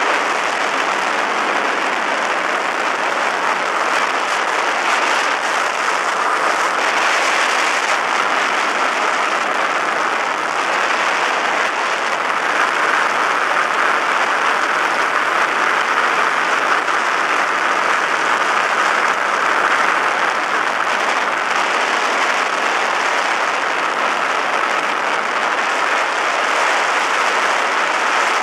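Steady rush of airflow and engine noise aboard a weight-shift microlight trike in flight, loud and unchanging, with wind buffeting the microphone.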